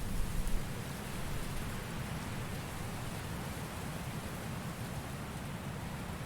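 Wind gust: the tail of a strong gust dies away about half a second in, leaving a steady rush of wind with a low rumble.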